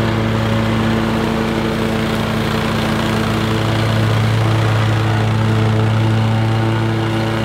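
Toro Grandstand MultiForce stand-on mower cutting grass, its engine running at a steady pitch under the even rush of the spinning cutting deck.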